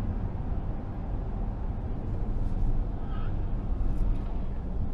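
Steady low rumble of road and engine noise from a car driving on a freeway, heard inside the cabin, with a faint brief high tone about three seconds in.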